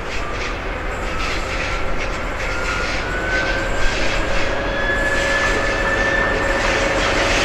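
Two TEP70-series diesel locomotives hauling a passenger train, engines working with exhaust smoke, growing steadily louder as the train approaches. A thin high whine rises slowly in pitch through the passage, over light clicking from the wheels early on.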